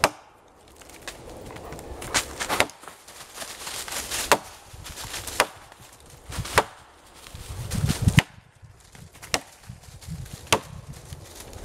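Axe chopping into a log, about nine sharp blows roughly a second apart.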